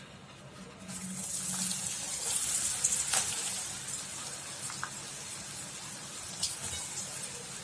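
Spice-coated peanuts sizzling in hot oil. A hiss comes in about a second in, swells, then settles to a steadier sizzle.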